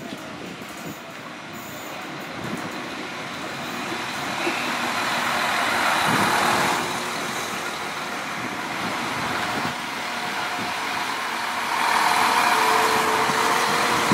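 Irish Rail 22000 class InterCity diesel railcar at the platform, its underfloor engines running. The engine noise grows louder toward the middle, eases off, then swells again near the end.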